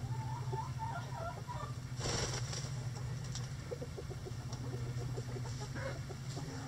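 Hens clucking softly in a coop, with a wavering call in the first couple of seconds, then a short rustle and small scratching and pecking ticks in the litter. A steady low hum runs underneath.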